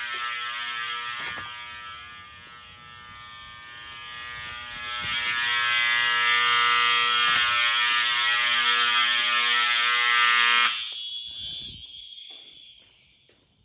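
Fire alarm horn sounding a steady, buzzy tone for a fire drill. It dips in level for a couple of seconds, then grows louder, and cuts off suddenly about eleven seconds in, leaving a short fading tail.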